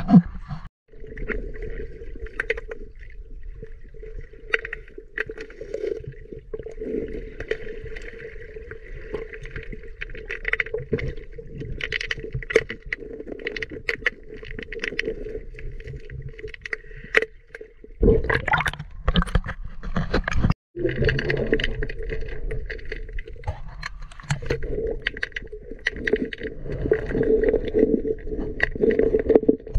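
River water heard underwater: a steady muffled drone with many small scattered clicks and knocks. A louder rush of water comes about eighteen seconds in.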